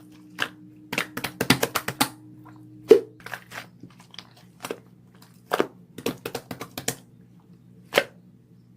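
Irregular sharp clicks and crunches, some in quick runs, over a steady low electrical hum; the sound cuts off suddenly at the end.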